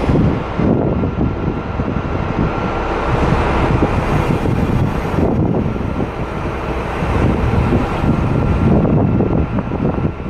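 Train running, a steady loud rumble with wind buffeting the microphone and a faint steady whine.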